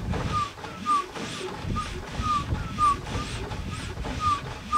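Willys MB's L134 four-cylinder engine being turned over with its spark plugs out and first gear engaged: a steady rhythmic churning with a short squeak about twice a second. No grinding or crunching, which the owner takes as the engine and transfer case running as they should.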